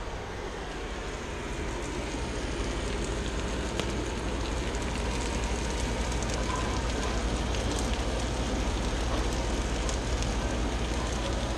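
Steady sizzling and bubbling of a cream sauce simmering in a cast-iron skillet while it is stirred with a wooden spoon, with faint crackles throughout.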